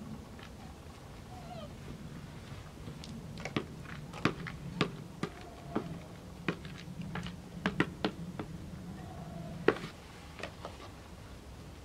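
Dry kibble clattering into red plastic bowls in irregular sharp clicks as it is tipped and scooped out of a green plastic bowl. Husky puppies whine briefly a few times.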